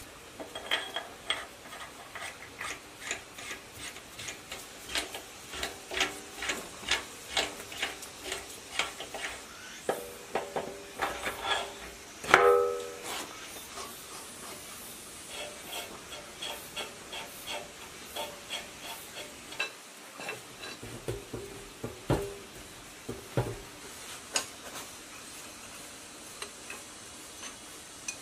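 Steel engine parts clinking and tapping against each other and the cast-iron block while a ZS1115 diesel engine is put together by hand. The clinks come about two a second at first, there is one loud ringing clang about twelve seconds in, and after that the clinks are sparser, with a few duller knocks.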